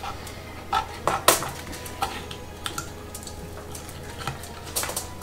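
Plates and cutlery clinking and knocking at a dinner table: a handful of sharp, irregular clinks, the loudest about a second in and a few more near the end, over a low steady hum.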